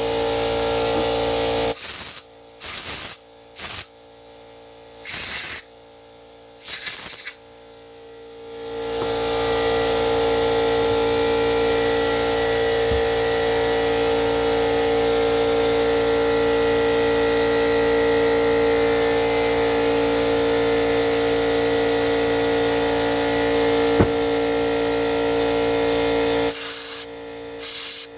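Compressed air from a blow gun hissing through cleaned carburetor parts and passages. There are five short blasts in the first seven seconds, then one long blast of about eighteen seconds that cuts off near the end, over a steady hum.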